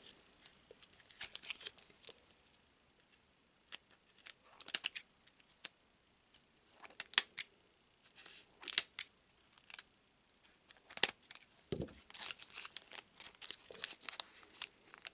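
Scissors cutting open a foil trading-card booster pack, with the wrapper crinkling and tearing: a scattered series of short, sharp snips and crackles separated by quiet gaps.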